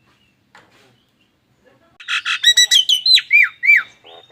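Pet myna (jalak Nias) calling: after a quiet first two seconds, a burst of loud harsh squawks breaks into several sharp whistles that each glide steeply down in pitch, the odd, alarm-like calls the bird is kept for.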